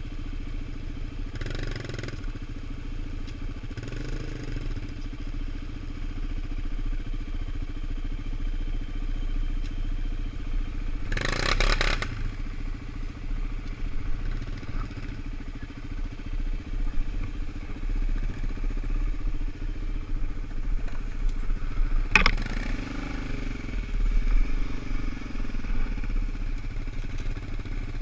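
Suzuki LT-Z400 sport quads, their single-cylinder four-stroke engines running steadily at low revs while riding slowly over a forest trail. A brief loud rushing noise comes near the middle, and a sharp knock comes about two-thirds of the way in.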